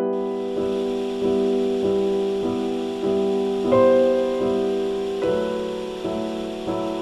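Background piano music: chords struck in an even pulse about every 0.6 s, each note fading before the next, with a brighter, louder chord about four seconds in.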